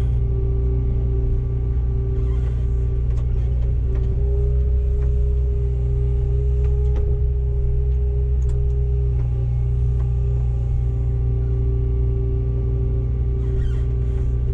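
Komatsu PW160 wheeled excavator's diesel engine running steadily, heard from the operator's cab: a constant low drone with a steady higher tone over it and a few faint clicks.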